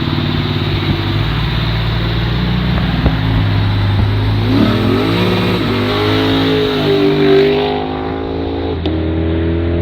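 Honda Civic's engine running, then revved up and down a few times from about halfway through.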